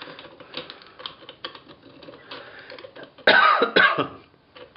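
Light metallic clicks and rattles as a castle nut and collar are handled and offered up to the threaded end of an MGB rear axle half-shaft. A little past three seconds in, a person coughs loudly twice.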